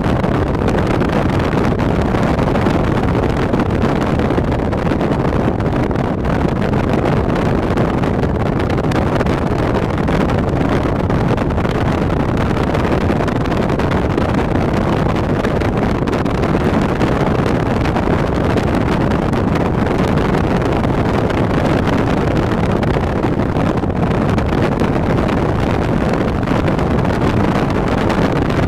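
Steady rumble of a car driving, with wind buffeting the microphone and road noise, unbroken and loud.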